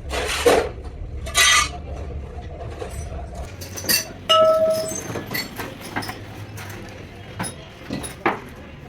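Metal tools and parts clinking and clattering on a workbench, with a brief ringing clang a little over four seconds in. Two short harsh noises come in the first two seconds.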